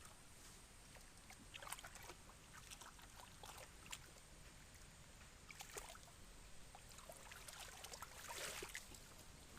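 Faint splashing and sloshing of muddy pond water being worked by hand, with scattered small clicks and a brief louder swish of water about eight and a half seconds in.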